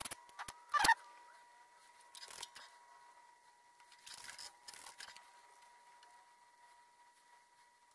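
Light clicks and taps of hand tools and a pen-style soldering iron being handled and set in its stand during PCB soldering, over a faint steady high-pitched whine.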